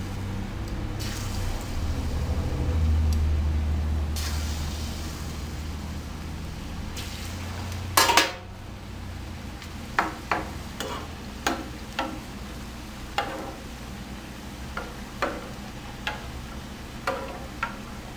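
Plantain slices sizzling as they fry in hot oil in a frying pan. There is a louder clatter about halfway through. After it, a metal slotted spoon stirring the slices knocks against the pan in a run of sharp clicks, about one a second or faster.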